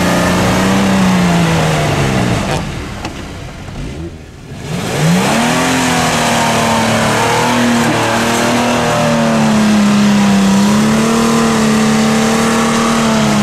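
Car engine revved hard under load. Its note sags and dips about four seconds in, then climbs sharply and is held at high revs until it drops off at the very end.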